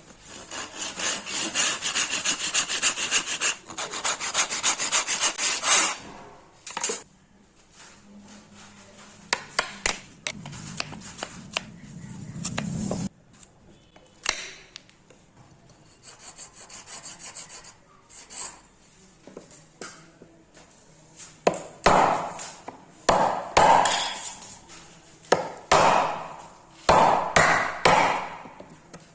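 Wood being sawn by hand: a steady run of fast sawing strokes at first, then a quieter stretch of light knocks and handling, and near the end slower back-and-forth strokes about one a second.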